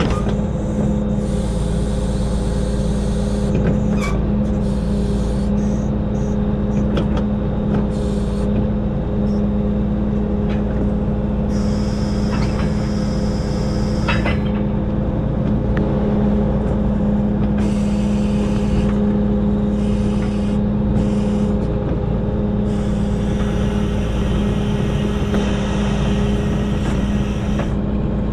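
Heavy diesel engine of a hydraulic log loader running steadily under load while logs are handled. Scattered knocks come about four seconds in and again near the middle, where a short hiss also sounds.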